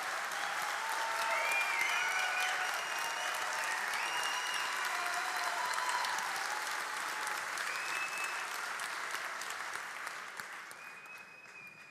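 Large audience applauding, a long ovation of many people clapping that dies away near the end.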